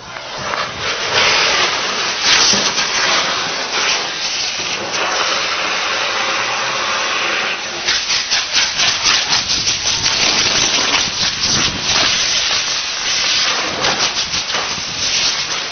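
Espada fireworks, bamboo tubes packed with gunpowder, burning with a loud, harsh hiss that turns into a rapid, flickering sputter from about halfway through.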